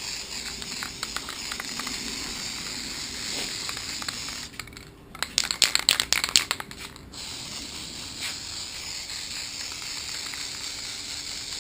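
Aerosol spray adhesive hissing as it is sprayed onto headliner fabric. About halfway through comes a loud burst of crackling, rattling clicks lasting roughly two seconds.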